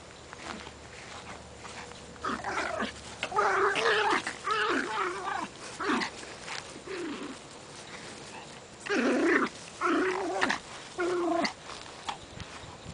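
Yorkshire terrier puppies growling at each other in play, in short pitched bursts: one run of growls a couple of seconds in and another a few seconds before the end.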